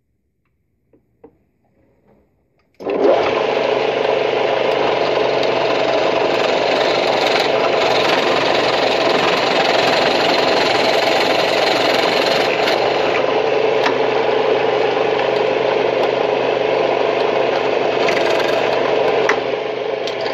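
Benchtop drill press starting about three seconds in and running steadily as its step drill bit bores a hole through an oak board. The noise eases off near the end as the hole goes through.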